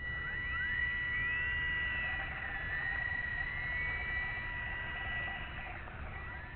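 Electric motor of an RC P-40 model plane whining. It runs at a steady high pitch that cuts in suddenly, with tones sweeping up and down over it, and drops away about six seconds in.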